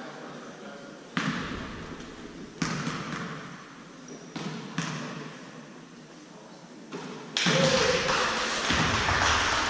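Basketball game in a gym: a few sharp thuds of the ball on the court with short echoing decays, then a sudden louder stretch of voices and court noise near the end.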